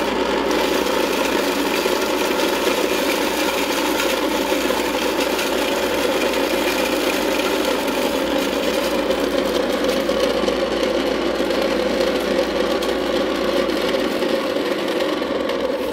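Portable electric dry mill grinder running steadily under load, its grinding plates milling grain into fine powder. It is a loud, even machine drone with no break or change.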